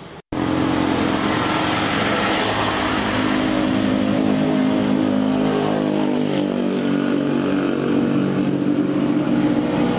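Motor vehicle engine running steadily, starting abruptly about a third of a second in.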